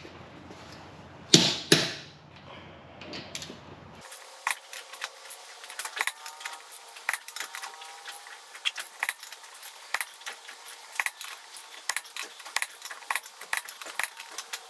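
A click-type torque wrench on a truck's lug nuts gives two sharp clicks about half a second apart, the sign that each nut has reached its set torque of 140 foot-pounds. After about four seconds comes a long run of light, uneven metallic clicks.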